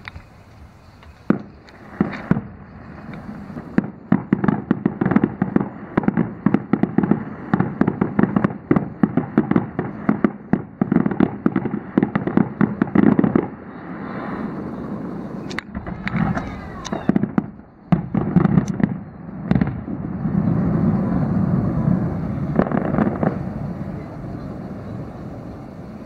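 A fireworks display a mile off: rapid volleys of bangs and crackling, densest from about four to thirteen seconds in, then scattered single bangs. About twenty seconds in, a steadier rushing noise takes over for a few seconds.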